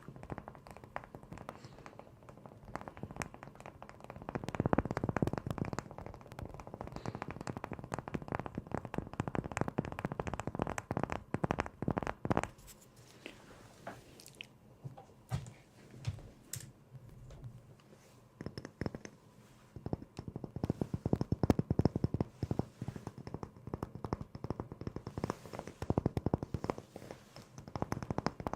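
Close-miked crunching and crackling, dense rapid clicks in long runs, with a sparser stretch in the middle.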